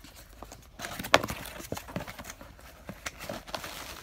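Cardboard and packing being handled and rummaged through in a camera box: rustling with a string of light knocks and clicks, and one sharper knock about a second in.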